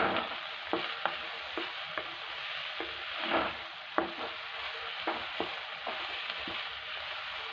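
Diced carrot, onion, green capsicum and tomato sizzling in hot oil in a pan, with a steady hiss, while a wooden spatula stirs them, scraping and knocking against the pan at irregular moments.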